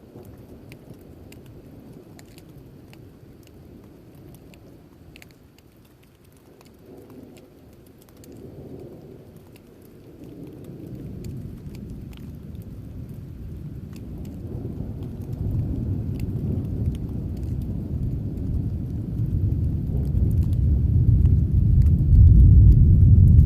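Rain falling with scattered drips, under a low rumble of thunder that builds from about ten seconds in and grows loud near the end.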